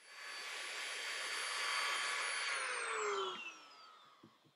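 Dremel rotary tool with a sanding drum running at high speed with a steady whine, then switched off about three seconds in and spinning down, its whine falling in pitch as it fades.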